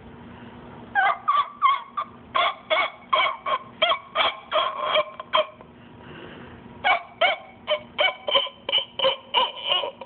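Pet cockatoo giving short, honking calls in a quick rhythm, about three a second, in two runs with a brief pause in the middle.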